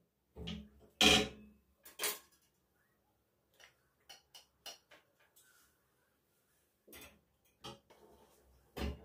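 Scattered knocks and clicks of household objects being handled and set down: two louder knocks about a second and two seconds in, then a run of light ticks and a few more knocks near the end.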